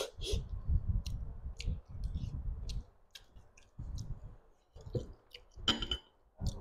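Close-miked chewing of chicken curry eaten by hand, with many small mouth clicks; the chewing is densest in the first three seconds, then thins to scattered clicks, with one brief louder noise near the end.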